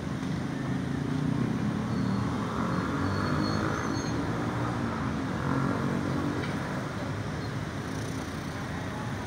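Motorcycle and car engines running in a steady low rumble that swells slightly in the first couple of seconds.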